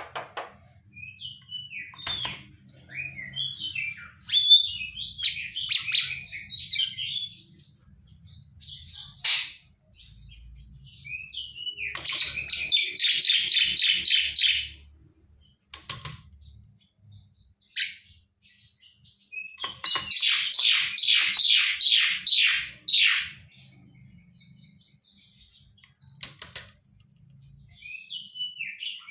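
Javan myna calling: scattered short whistles and chirps, and twice a run of rapid, harsh repeated notes lasting about three seconds, the first near the middle and the second about two-thirds of the way through.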